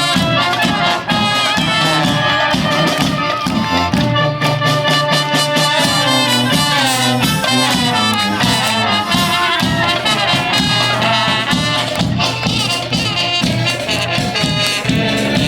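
Klezmer band playing live, with brass instruments carrying the tune over a steady, pulsing bass line.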